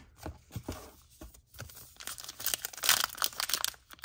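A trading-card pack wrapper being torn open and crinkled by hand. There are a few light handling clicks at first, then steady crackling tearing from about halfway through.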